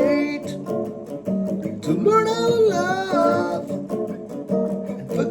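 Guitar tuned a half step down playing a rock riff, with notes that bend and slide in pitch about two seconds in and again near the end.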